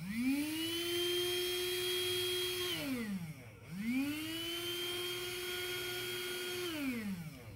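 HL-107 handheld vacuum's small DC motor and fan, powered directly from an 8.4-volt two-cell lithium pack. It spins up twice, each time with a quickly rising whine that settles to a steady pitch, runs for about two and a half seconds, then winds down as the power is broken.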